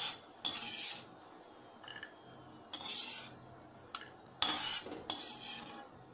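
Perforated steel skimmer scraping around a kadai in hot ghee as fried cashews are scooped out and tipped into a steel bowl, metal on metal, in a few separate strokes with the longest near the end. A single sharp clink comes about four seconds in.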